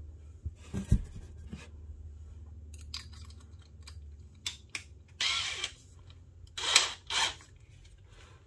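Handling noises while tools are readied: scattered light clicks, then two short, louder scraping rustles in the last few seconds. A low steady hum underneath fades out about five seconds in. No drilling.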